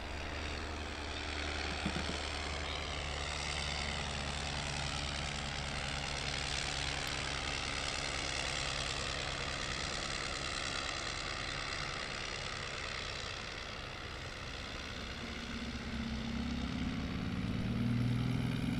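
Blackburn Type D monoplane's single rotary engine, a Gnome, running steadily as the 1912 aircraft flies past. The engine note bends in pitch early on and grows louder and lower near the end as it comes closer again.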